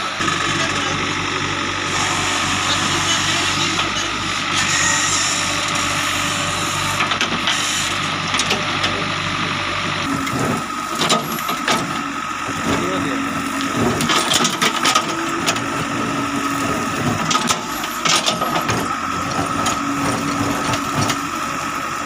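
JCB 3DX backhoe loader's diesel engine running steadily with a steady high whine. About halfway through, the backhoe bucket starts digging in the trench, with repeated sharp scrapes and knocks against soil and stones over the engine.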